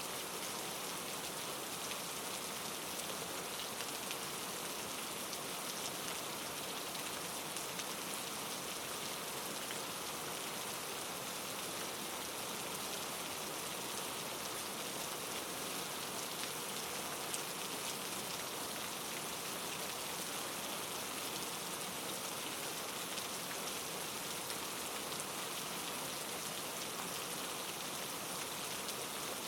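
Steady rainfall: an even hiss of rain with a few faint scattered drop ticks.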